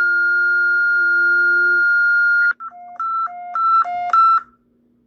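Electronic emergency alert tone: a long steady high beep that cuts off about two and a half seconds in, then a quick run of about seven short beeps alternating between a high and a lower pitch, stopping about four and a half seconds in.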